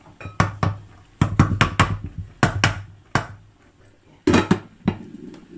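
A cooking utensil knocking and scraping against a pan while tocino simmers: a series of sharp clacks in irregular bunches, with a quick run of them about a second in.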